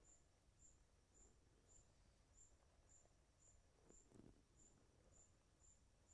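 Faint cricket chirping: a high, even chirp repeating just under twice a second, in an otherwise near-silent background, with a faint low rustle about four seconds in.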